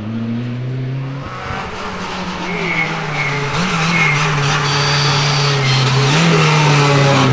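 Citroën C2 rally car's engine at high revs as it approaches on a stage, growing louder. The engine note dips and climbs again a few times as it shifts and lifts for the bend.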